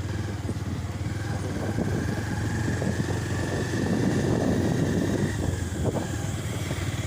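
Motorcycle engine running steadily, with a faint high whine in the middle.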